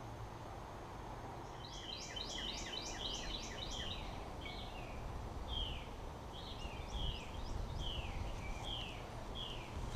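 A songbird singing a quick run of falling, slurred whistles, then slower falling notes about twice a second, over a low rumble.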